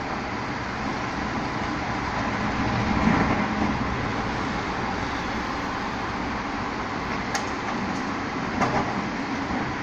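Rotopress rotary-drum garbage truck running steadily while bulky waste is loaded into it, with a louder swell about three seconds in and a couple of sharp knocks and clatters near the end.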